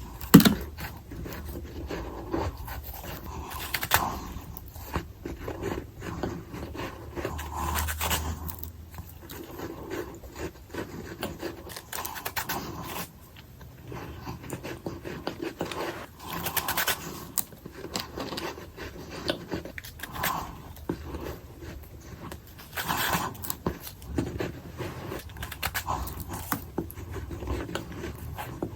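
Ice bitten and chewed close to the microphone: a sharp crunch every few seconds with crackly chewing between, in a sped-up mashup of bites.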